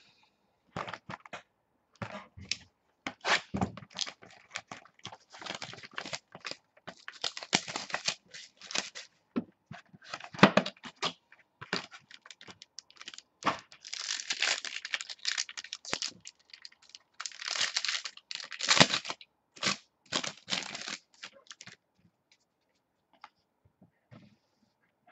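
Wrapping on a box of football trading cards being torn open and crinkled: irregular bursts of tearing and crinkling that stop about 22 seconds in.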